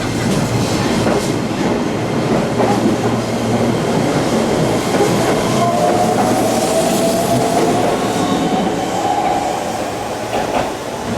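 Keihan 10000 series electric train running by the platform, a steady rumble of wheels on rail. In the second half a thin whine slowly rises in pitch.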